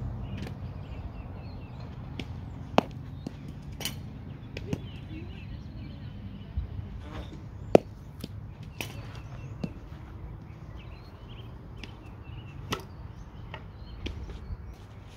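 A series of sharp knocks and cracks at uneven intervals, the loudest about eight seconds in, from a softball batting practice session with bat, balls and backstop. Birds chirp faintly.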